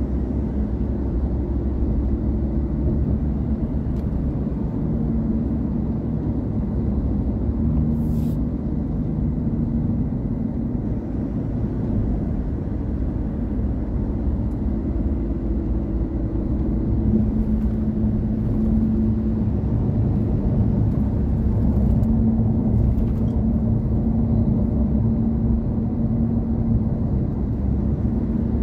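Car driving at speed on a highway: a steady low rumble of engine and road noise, a little louder past the middle.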